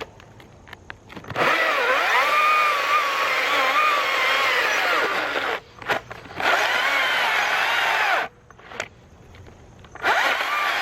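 STIHL battery-powered electric chainsaw with a 16-inch bar cutting into a thick log; its motor whine wavers and dips in pitch as it loads up. It starts about a second and a half in, breaks off briefly around the middle, stops for about two seconds near the end, then cuts again.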